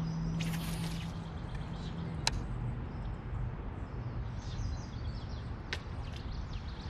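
Faint bird chirps over a low steady rumble, with two sharp clicks, one about a third of the way in and one near the end.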